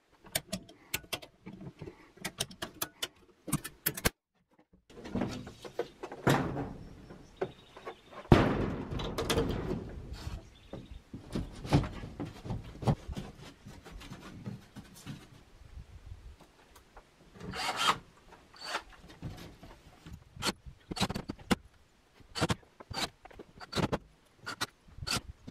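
Knocks, thunks and rubbing from a plywood sheet being handled against the steel wall of a shipping container, with many scattered sharp clicks.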